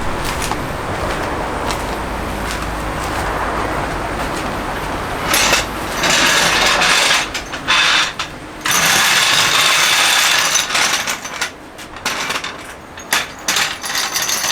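A steady low rumble, then loud bursts and irregular mechanical clicking and rattling of a car jack and tools being handled.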